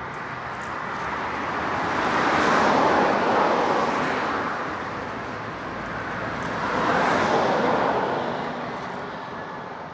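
Two road vehicles passing by one after the other, each a broad rushing noise that swells up and fades away: the first loudest about three seconds in, the second about seven seconds in.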